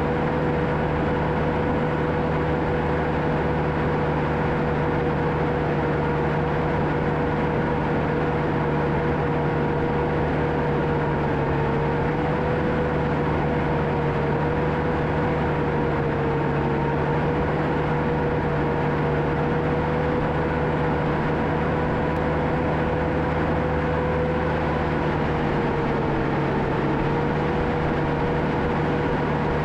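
John Deere 650K crawler dozer's diesel engine running steadily at working speed, a constant drone with a steady whine on top. The pitch sags slightly a few times, around the middle and near the end.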